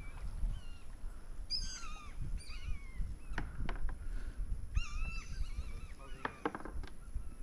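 A flock of fish-eating river birds, which the angler calls gulls, calling over and over: short, overlapping calls that fall and waver in pitch, over a low rumble.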